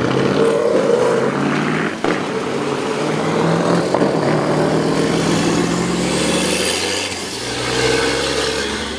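Rally vehicles driving past on a wet road: engines running in a continuous hum over a wash of tyre and road noise, with a rising whine about two-thirds of the way through. Near the end a MAZ rally truck's engine passes.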